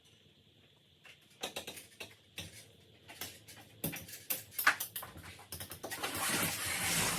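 Irregular light clicks and knocks of things being handled, with a rustle building up over the last second or so.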